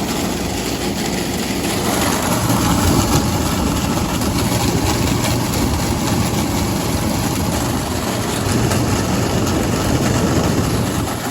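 Frigidaire FFTH102WA2 through-the-wall air conditioner running with its compressor and fan on, a loud, steady rumble that grows a little louder about two seconds in. The owner puts the noise down to water standing in the unit's base, which he hopes will drain out.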